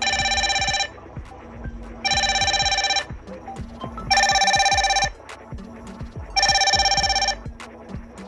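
Incoming-call ringtone: four rings of a warbling electronic tone, each just under a second long and about two seconds apart.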